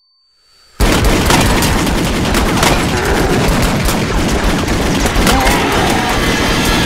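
Silence, then about a second in a sudden loud barrage of rapid gunfire with heavy booms that keeps going.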